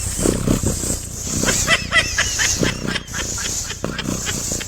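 An animal making a quick irregular series of short, high chirping calls that bend in pitch.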